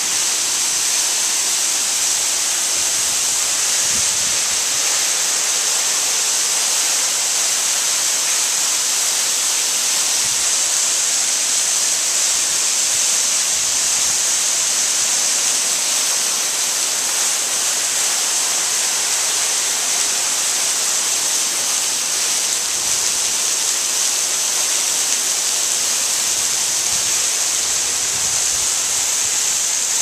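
Waterfall pouring off a rock overhang and splashing onto rocks: a steady, even hiss of falling water.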